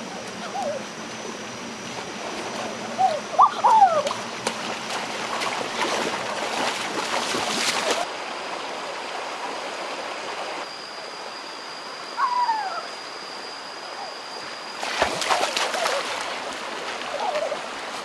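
Rocky stream running steadily, with louder splashing at about four to eight seconds in and again around fifteen seconds. Short rising-and-falling calls and a thin, steady high whine sound over the water.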